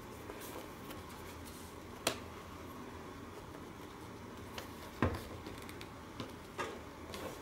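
A few sharp plastic clicks, the loudest about two seconds in and again about five seconds in, as the corner and edge clips of a Trident Cyclops rugged tablet case are unclicked, over faint steady room hiss.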